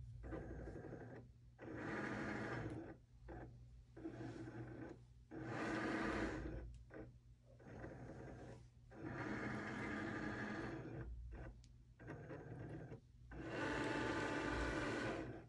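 Cricut Maker 3 cutting machine running a print-then-cut calibration: its motors whir in about seven short bursts, each a second or two long with brief pauses between, as they move the tool carriage across and feed the mat in and out.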